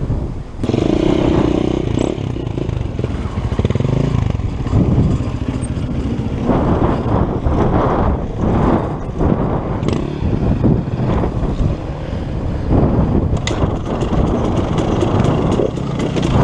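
Dirt bike engine running at low speed with uneven throttle, its loudness rising and falling, along with a few sharp clicks.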